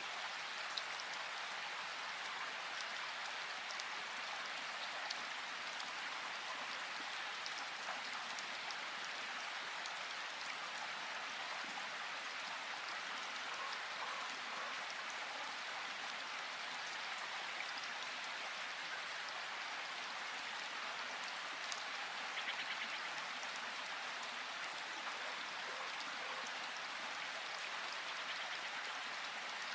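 Steady rushing of a river, a continuous even hiss of flowing water, with a few faint brief ticks over it.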